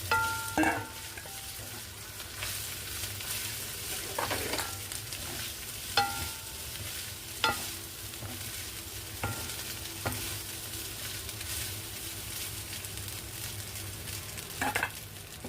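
Garlic fried rice sizzling in butter in a hot pan as it is stir-fried, with a metal spatula scraping and clinking against the pan at irregular intervals, a few clinks leaving a brief metallic ring.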